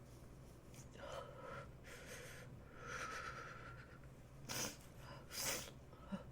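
A person with a cold breathing noisily in and out a few times, then two short, sharp sniffs about a second apart, with a small click near the end.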